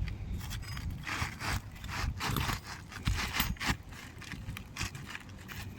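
Hammer striking a roof snake worked under asphalt shingles to lift them and pop the nails: a run of irregular knocks mixed with scraping.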